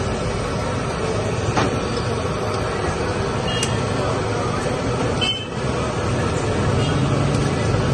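Boiling milk tea being ladled up and poured back into its steaming pot over a steady roar of stall noise, with three sharp metal clinks about two seconds apart.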